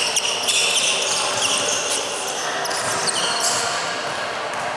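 Sounds of a basketball game on an indoor court: repeated short, high squeaks of sneakers on the floor, with a basketball bouncing.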